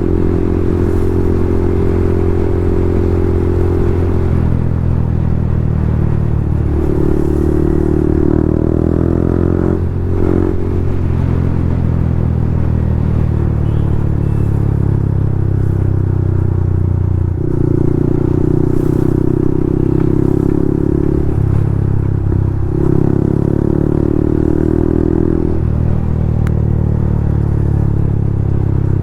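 Yamaha MT-15's single-cylinder engine running loud and steady through an aftermarket Akrapovic full-system exhaust. The note eases and picks up again a few times.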